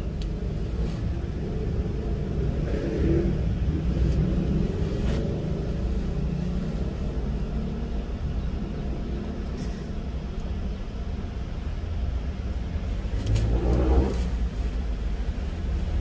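Acetylene torch flame burning steadily with a low rumble while it heats a filler rod on a radiator core, welding shut a very small leak. The rumble swells briefly near the end.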